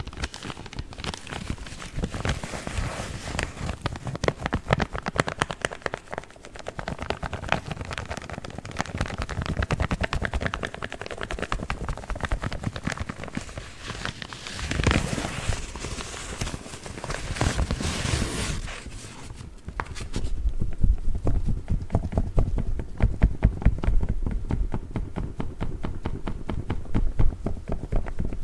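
Paper coffee filter bags being rapidly crinkled, scratched and tapped by fingers close to the microphone. About two-thirds of the way through, the crisp crackle gives way to duller, lower tapping.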